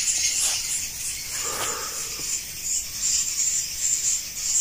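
Night insects chirping in a high, pulsing chorus.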